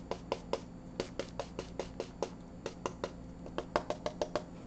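A paintbrush dabbing acrylic paint onto a canvas: quick, uneven taps of the bristles, about five or six a second, stippling highlights into tree foliage.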